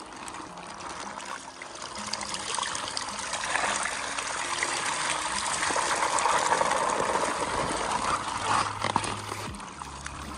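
Water pouring and splashing in a steady rush that builds to its loudest about six to eight seconds in, with a few sharp knocks near the end.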